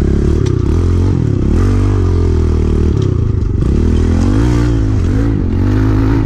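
Kawasaki KLX110 pit bike's small single-cylinder four-stroke engine being ridden, its pitch rising and falling again and again as the throttle is opened and eased, with a few knocks and rattles from the bike over rough ground.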